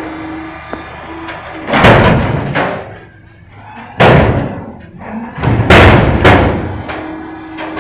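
Front-loader garbage truck tipping a large carry can into its hopper with its overhead lifting arms: the can bangs and crashes loudly several times as it is dumped and shaken out. A steady whine from the truck is heard at the start and again near the end.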